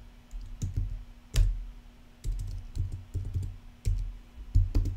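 Computer keyboard being typed on in short irregular runs of keystrokes, some with a dull knock, over a faint steady hum.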